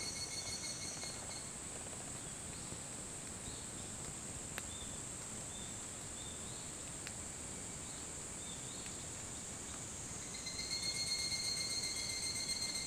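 Higurashi (evening cicadas, Tanna japonensis) calling. A close one's rapid, pulsing high trill fades out about a second in, leaving a steady high hum of more distant cicadas with faint short chirps. Another close one starts up near the end, louder.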